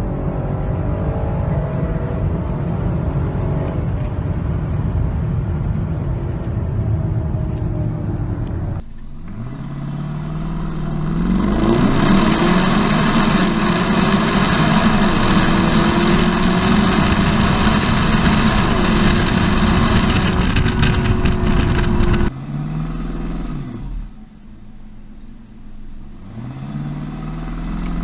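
2015 BMW X5's engine and exhaust under hard acceleration. For about the first nine seconds it is heard from inside the cabin, mixed with road noise. After a cut it is heard at the tailpipe: the note climbs in pitch and runs loud and steady, drops off suddenly a few seconds before the end, then rises again.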